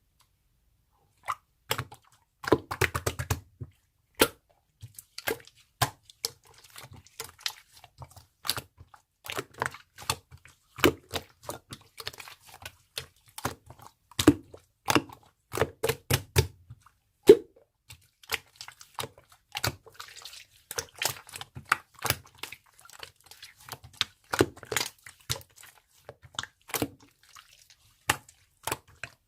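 Close-up handling noise: irregular sharp clicks, taps and crinkles of small objects being handled, some with a low thud, several a second and uneven in spacing.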